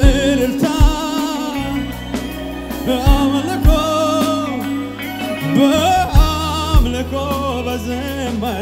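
Live gospel worship song: a man sings a sustained melody with heavy vibrato over a band of drum kit, electric guitar and held low bass notes, with kick-drum thumps about every half second to second.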